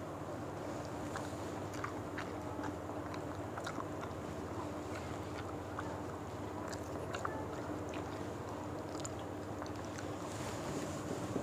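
Chewing and eating with bare hands: scattered small clicks and smacks of mouths and fingers in rice and fish, over a steady low hum.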